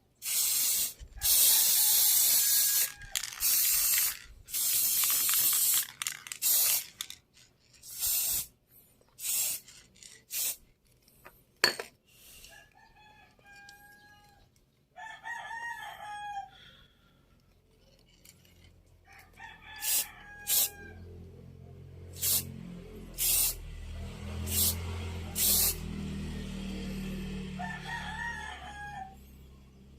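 Short, loud bursts of harsh noise from a power tool working on the speaker box for the first ten seconds or so. After that, chickens cluck and a rooster crows several times in the background, and a low hum builds from about twenty seconds in.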